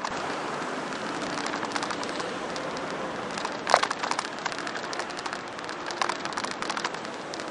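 Bicycle riding noise on city pavement: a steady hiss of tyres and moving air with constant small rattling clicks, and one sharper knock a little under four seconds in.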